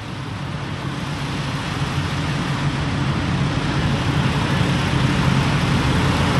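Truck stop fuel-island ambience: semi-truck diesel engines idling with a steady low hum and broad hiss, swelling gradually louder over the first few seconds.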